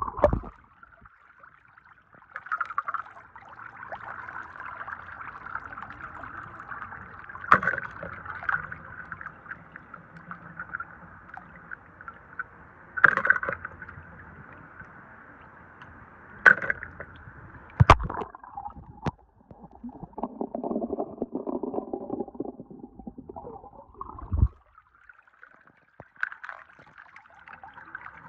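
Water splashing and sloshing as small die-cast toy cars are washed by hand, with a few sharp knocks of the toys against each other or the basin.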